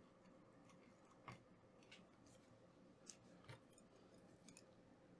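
Near silence broken by about five faint, sharp clicks and taps from handling a laptop motherboard around its HDMI port.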